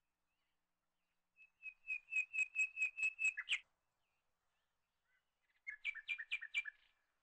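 A bird chirping in two quick series of repeated high notes, about five a second. The first series lasts about two seconds, and a shorter, lower one comes near the end.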